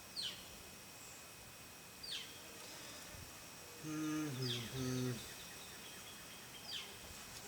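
A bird repeating a short, high chirp that falls in pitch, four times about two seconds apart. Around the middle, a low voice-like hum or murmur lasting about a second is the loudest sound.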